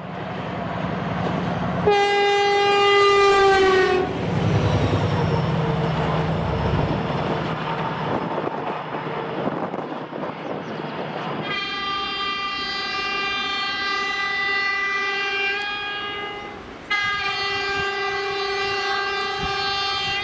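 Train horn sounding three times: a short blast about two seconds in, a long blast a little past halfway, and another near the end. The rumble of the moving train runs between the blasts.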